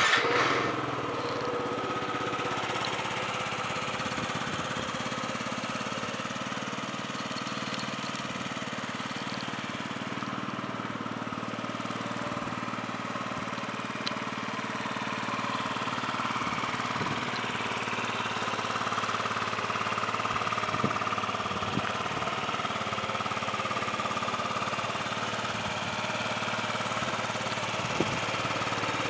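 2009 Yamaha JOG scooter's 49 cc four-stroke engine starting and catching at once, then idling steadily; the engine is in good running order.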